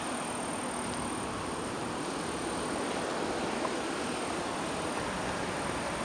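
Steady outdoor rushing noise with a thin, high, steady whine above it.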